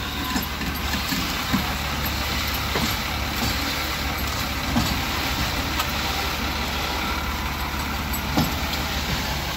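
Truck engine idling steadily, with a few faint knocks.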